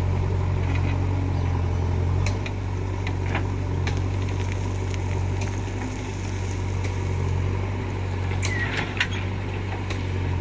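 JCB 3DX backhoe loader's diesel engine running steadily under digging load, with scattered knocks and scrapes as the bucket works through soil and stones and dumps its load. A sharp squeal and knock comes about nine seconds in.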